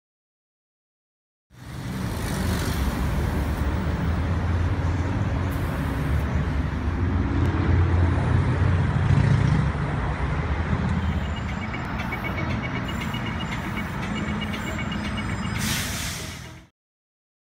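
Busy city road traffic, trucks and cars passing with a steady low rumble. It starts about a second and a half in and fades out near the end, with a faint rapid high-pitched pulsing in the latter part.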